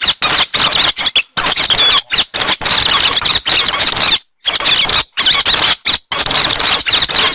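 Recorded song of the bird called hét xoan, a thrush, played loud as a lure call for bird catchers: a fast, continuous run of varied high chirps and warbles in spurts with short breaks, and a longer pause a little after four seconds.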